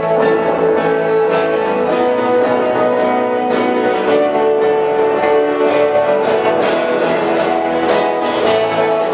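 Instrumental introduction of a worship song: strummed guitar with held chords and a steady beat, no voices yet.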